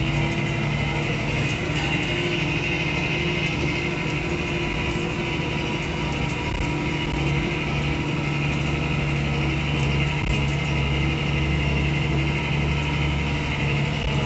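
Farm tractor's diesel engine running steadily under load, heard from inside the cab.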